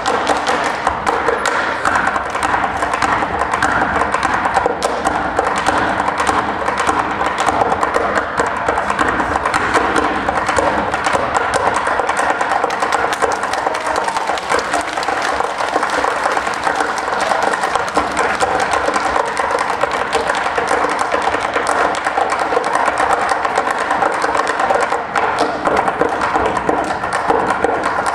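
Tap shoes striking a wooden stage floor in fast, dense rhythmic taps, over music.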